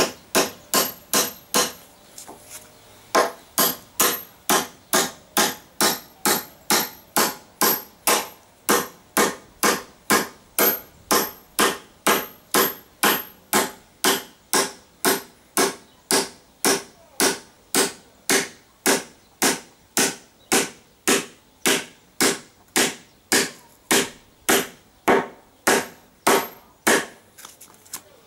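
Hammer driving nails into wooden boards: steady, even blows about two a second, with a short pause about two seconds in before the hammering resumes.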